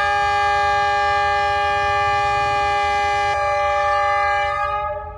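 D19E diesel-electric locomotive's air horn sounding one long, steady blast of several notes at once, which fades and stops near the end. A low diesel rumble runs underneath.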